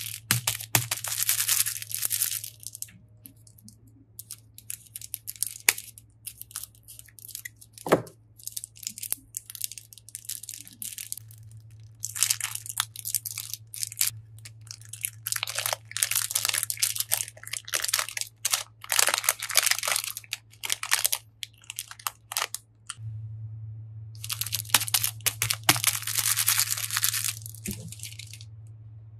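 Clear plastic cone bag full of water beads crinkling as hands squeeze and tear it open, in several long crackling spells. Scattered small clicks come from beads dropping into a glass dish, over a steady low hum.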